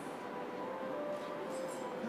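A JR Kyushu 305 series electric train giving off a steady electrical hum with a few faint held tones over a background hiss.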